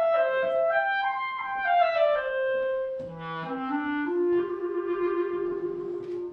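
Solo clarinet playing a short melody: a run of quick stepped notes winding downward, then a drop to a low note about halfway through and a climb to a long held note near the end.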